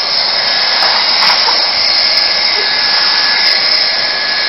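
Handheld hot-air plastic welding gun (heat gun) blowing steadily: a constant airy hiss with a faint high whine, heating the edge of an HDPE liner patch for welding.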